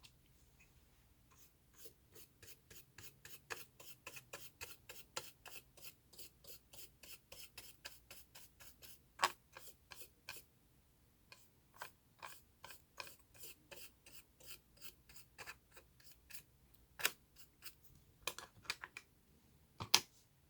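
A small hand tool working on a laptop's internals: quick, even scraping strokes at about three or four a second, then slower, scattered strokes with a few sharper clicks near the middle and end.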